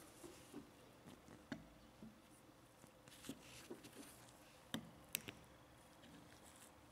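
Faint scattered clicks and small scrapes of a metal tool prying a retaining clip off a shaft stub on a rusty hand-grinder frame, with two sharper clicks about five seconds in.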